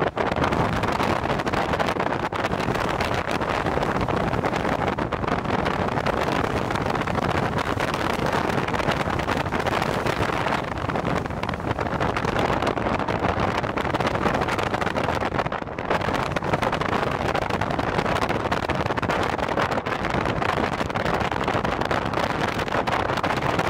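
Strong gusty storm wind buffeting the microphone in a steady, dense rush, with the engine noise of jet airliners landing beneath it.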